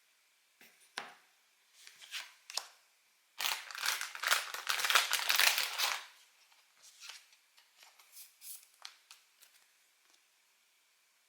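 Hands handling Pokémon trading cards and their packaging in a quiet room: a few short rustles and clicks, then a dense crackling rustle lasting about two and a half seconds from a little over three seconds in, then lighter slides and taps.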